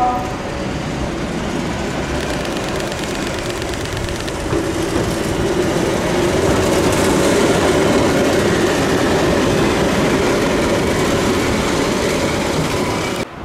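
Keihan 700 series two-car electric train running past on the tracks, its wheel and running-gear noise building to loudest as it goes by close about halfway through, then easing off as it moves away. The sound cuts off suddenly just before the end.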